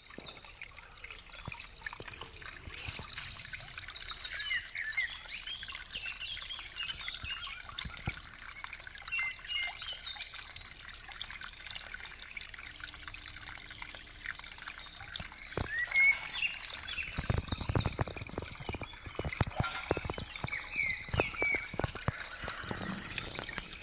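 A small woodland brook trickling, with birds singing repeated high trills and chirps over it. In the second half there are some rustles and knocks close to the microphone.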